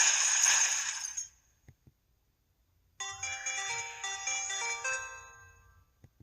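EV-W350 mobile phone alert tones played back to back: a noisy, jingling ring that cuts off about a second in, then after a short silence a bright electronic chime melody with quick rising runs of notes that fades away.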